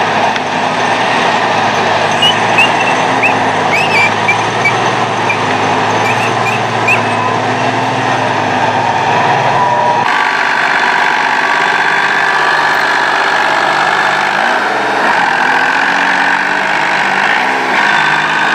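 Tractor engine working hard under load in mud, with a scatter of short high chirps over it in the first half. About ten seconds in the sound cuts to a small New Holland 60-66S tractor stuck in mud, its engine revving up and down as the rear wheels spin.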